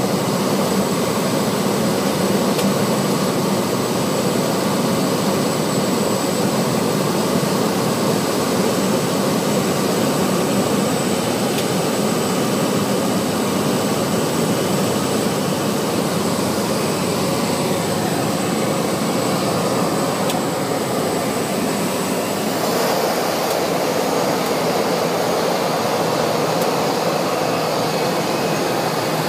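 Single-engine propeller plane's engine and propeller drone, heard inside the cabin during descent and approach. The sound shifts in tone about 22 seconds in.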